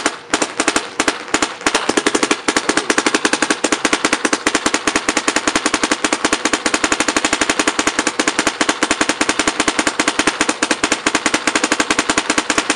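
Dye NT paintball marker firing a long, unbroken string of rapid shots, many a second, with an even crack to each one as it empties its compressed-air tank for an efficiency test.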